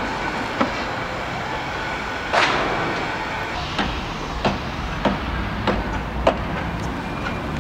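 Steady outdoor city traffic rumble, with sharp clicks at an even pace of roughly one every 0.6–0.7 seconds.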